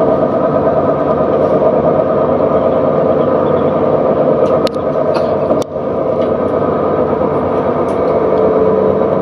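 CAF Urbos 3 light rail tram running along the track, heard from onboard: a steady hum with wheel-on-rail running noise, and two short clicks about halfway through.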